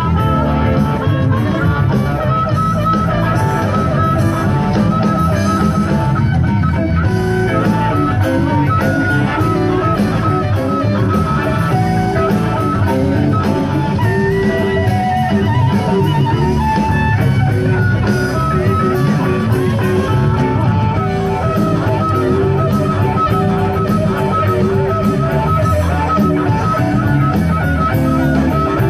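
Rock music led by guitar, playing steadily and loudly.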